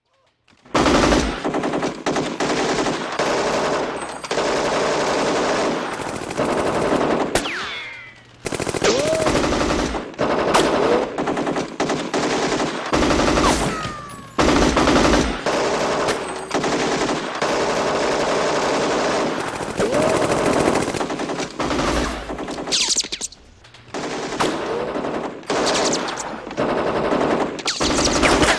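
Sustained automatic machine-gun fire in long, dense bursts, with a few short breaks, the longest around eight, fourteen and twenty-three seconds in.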